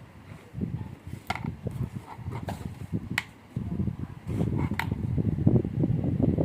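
Low, uneven rumbling noise, heavier in the second half, with four sharp clicks spread through it.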